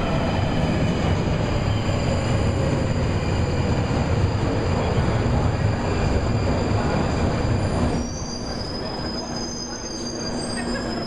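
Passenger train running with a heavy rumble and thin high whines; about eight seconds in the rumble eases while high squealing from the wheels carries on.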